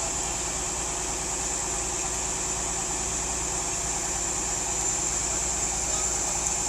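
An engine running steadily at an even pitch, with a constant high-pitched whine over it.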